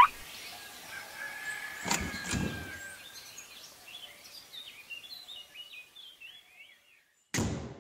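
A car door is opened and then shut with a single heavy thud near the end, while small birds chirp in the background. A couple of knocks come about two seconds in, and a short beep sounds at the very start.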